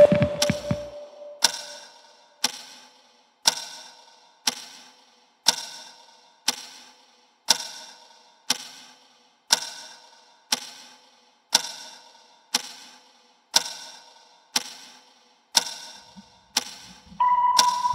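A clock ticking once a second, each tick sharp and ringing on briefly. Near the end a steady high tone starts up under the ticks.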